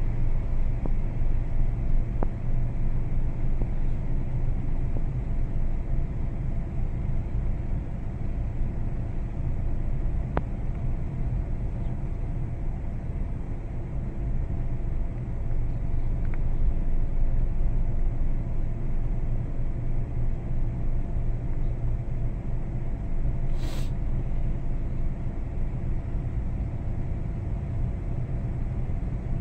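Engine and road noise of a moving vehicle heard from inside it: a steady low rumble with a faint steady hum above it. There is one short sharp click about three-quarters of the way through.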